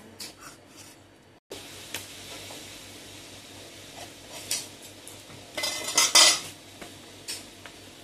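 Cleaver blade knocking and scraping on a wooden chopping board while scoring whole tilapia, with scattered knocks and a short burst of loud clattering about six seconds in.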